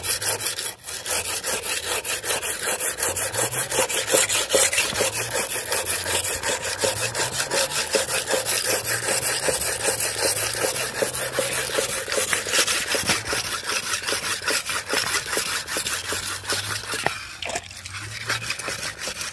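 Knife blade being ground on a wet coarse sharpening stone, in rapid back-and-forth scraping strokes with a short break near the end. The blade's chipped edge is being ground thin again.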